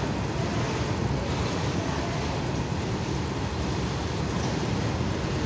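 Indian Railways freight train of covered goods wagons rolling past close by: a steady rumble of wheels on rail.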